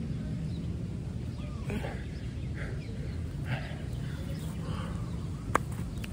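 Birds calling faintly over a steady low rumble, with a single sharp click about five and a half seconds in.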